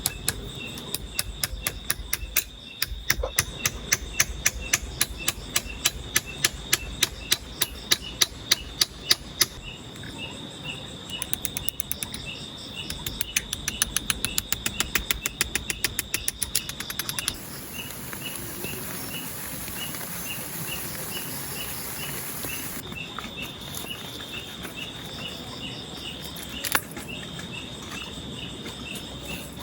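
Forest insects calling steadily: a high continuous trill with evenly repeated chirps, a run of fast regular clicks, about three a second, through the first half, and a high buzzing hiss for several seconds past the middle.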